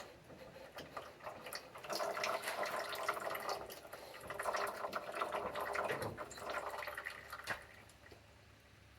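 Hydraulic fluid trickling and dripping from a tractor loader lift cylinder as its rod is pulled out, with many small irregular clicks. It fades out near the end.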